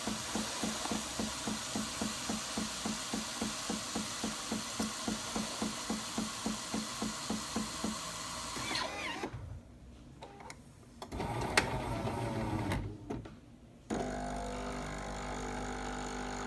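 Jura Impressa J85 bean-to-cup coffee machine frothing milk for a cappuccino: a pulsing hiss, about five pulses a second, for roughly the first nine seconds. The frothing then stops; a short burst of noise with a sharp click follows, and a steady machine hum starts about two thirds of the way in.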